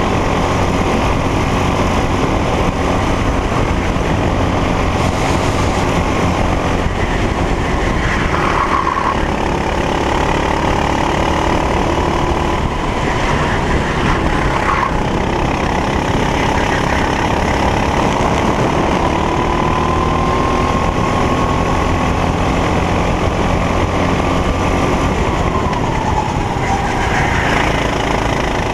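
Racing kart engine at race pace. The pitch drops sharply about 8 and 14 seconds in, then climbs steadily for several seconds and falls again near the end, as the kart brakes for corners and accelerates out of them.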